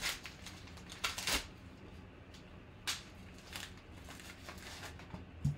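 A trading-card pack's wrapper being torn and pulled open by hand, crinkling in a few short rustles with quieter handling of the cards between.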